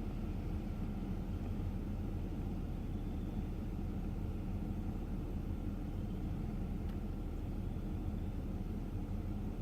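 Steady low rumble of an idling car engine, heard from inside the parked car's cabin.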